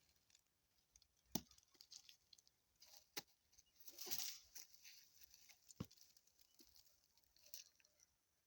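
Near silence with a few faint, sharp clicks and a short rustle about four seconds in.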